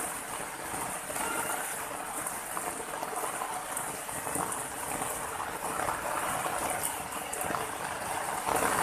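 Water flowing steadily over rocks in a small cascade, a continuous even splashing.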